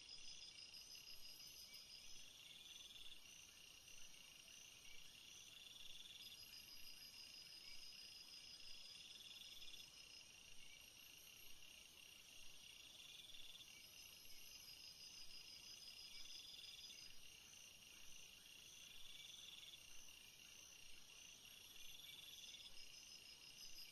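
Faint chorus of insects, several trilling at different high pitches in short bouts that repeat every few seconds over a steady high hum of other insects.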